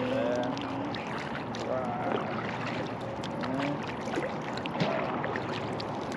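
Kayak paddling: a double-bladed paddle stroking through the water on alternate sides, with water splashing and dripping off the blades in many small sharp ticks over a steady rush of water.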